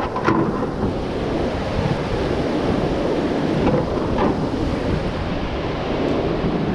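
Rushing white water of a river rapid close by: a steady, loud rush with a deep rumble, wind buffeting the microphone. Two short knocks right at the start.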